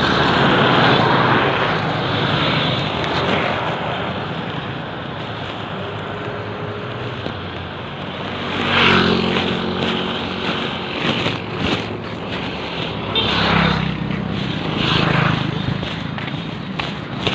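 Small motorcycle engines passing on a road, their note swelling and fading several times in the second half, over a steady rush of wind noise on the microphone.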